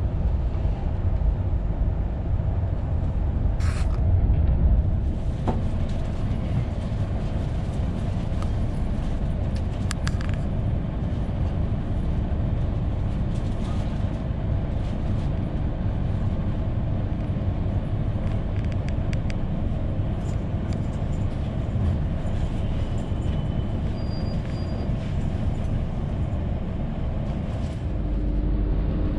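Steady low running rumble inside a CP Intercidades passenger coach as the train moves, with a few sharp clicks in the first third and two brief, faint high tones a little past the middle.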